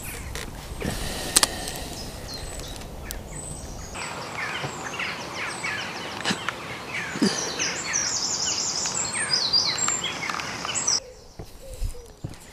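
Wild birds singing and chirping in a chorus of short, quick notes, busiest in the middle of the stretch. The song sits over a low outdoor rumble that cuts off about four seconds in. There is a single sharp click about a second and a half in.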